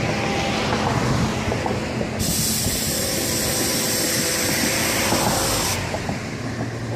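Florida East Coast Railway freight train running by close, a steady rumble with wheels knocking over the rail joints. A high hissing noise comes in suddenly about two seconds in and stops about three and a half seconds later.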